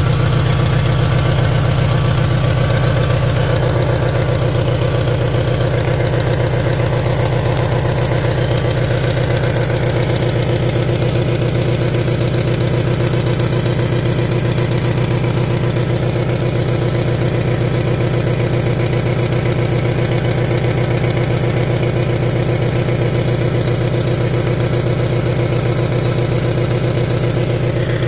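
Car engine idling steadily with an even, rapid pulsing, making a weird noise that the owner suspects comes from the catalytic converter; the car is not running as it should.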